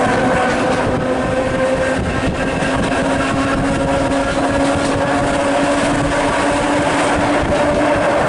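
Electric train running, heard from inside the carriage: a steady rumble of wheels on rails under a hum that rises slowly in pitch as the train gathers speed.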